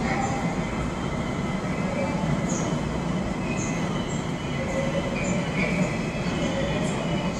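Line 4 subway train running on the rails: a steady rumble of wheels and running gear, with a few short, faint high squeaks.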